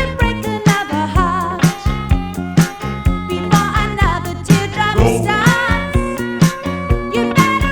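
Upbeat background music with a steady drum beat and a wavering melody line, possibly sung.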